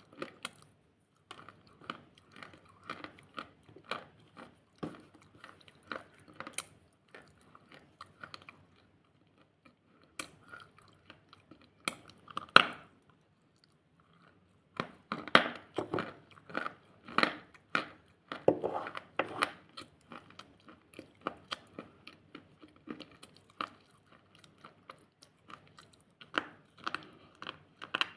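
A person biting and chewing something crunchy close to the microphone: runs of crisp crunching strokes broken by short pauses, with one loud crunch about halfway through.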